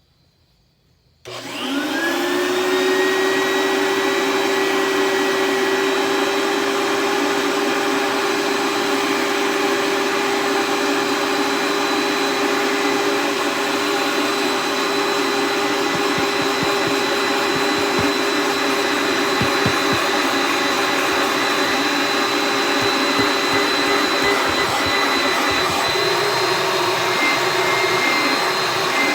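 Oreck bagged vacuum cleaner switched on about a second in. Its motor spins up with a rising whine, then runs steadily at full speed.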